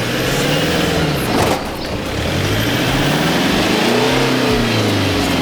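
Off-road SUV engine revving up and down under load: its pitch falls during the first second and a half, climbs to a peak about four seconds in, then eases off.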